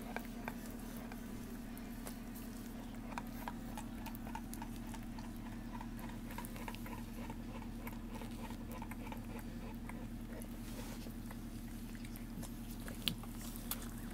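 Faint wet clicks and smacks from newborn bullmastiff puppies stirring and suckling, with a run of small regular ticks, about two a second, in the middle. A steady low hum lies underneath.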